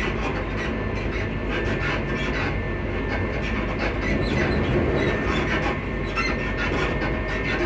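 Class 334 electric multiple unit running at a steady speed, heard from inside the carriage: the traction motors' whine holds one pitch over the rumble of wheels on the rails, with scattered light clicks from the track.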